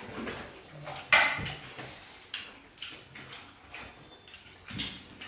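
Eating by hand, with chewing and lip-smacking and dishes clinking. The loudest sound is a sharp clink about a second in, followed by a few lighter knocks.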